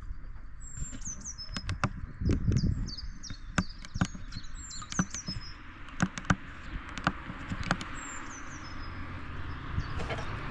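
A songbird singing short phrases of high, falling chirps, four or five times, over scattered sharp clicks and taps and a low rumble.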